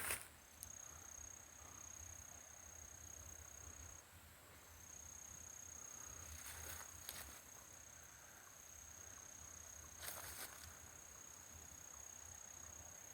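An insect trilling in one steady, high, thin tone, breaking off briefly about four seconds in. A few faint rustles come partway through.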